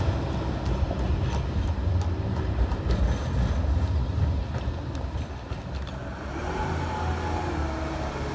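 Electric tram passing close by: a steady low running hum, with scattered light clicks from the wheels over the track.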